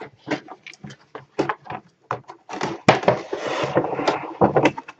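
Cardboard figure box and its plastic packaging handled close to the microphone: a string of taps, clicks and scrapes, with a longer rustling slide starting about three seconds in.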